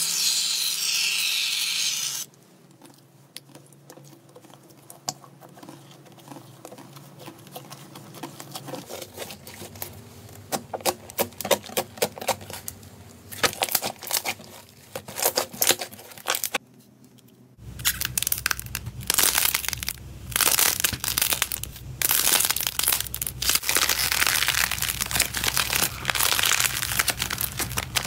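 Foam hissing out of an aerosol can for about two seconds, then hands kneading and squeezing fluffy foam slime: sticky crackling and popping, sparse at first and dense and louder in the last third.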